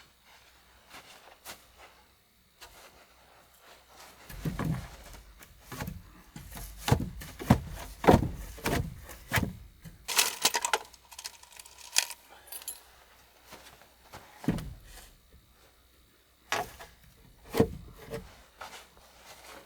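Irregular knocks, clicks and clinks of objects being handled and set down, in uneven clusters, with a short hissing scrape about halfway through.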